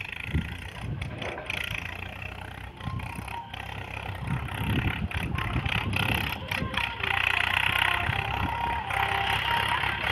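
Farm tractor's diesel engine running under load as it pulls a tillage implement through a dry field, growing louder over the second half as the tractor comes closer.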